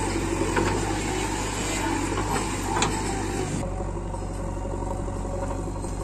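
Diesel engine of a JCB 3DX backhoe loader running steadily while the backhoe works, with a few sharp knocks in the first half. The sound changes abruptly about three and a half seconds in, becoming duller.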